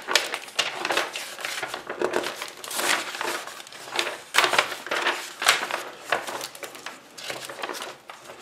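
Pages of a glossy Mickey Mouse comic magazine being turned one after another, paper rustling and flapping in a string of irregular quick swishes.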